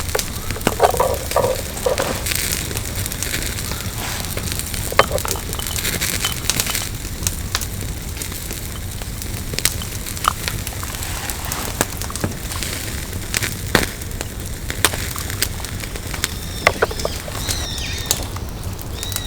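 Wood campfire burning, with irregular crackles and sharp pops over a steady low hiss. A few short high chirps come in near the end.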